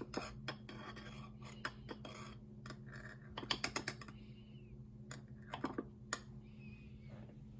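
A metal teaspoon tapping and scraping against a jar and spice container while ground ginger is spooned in, heard as several quick runs of light clicks.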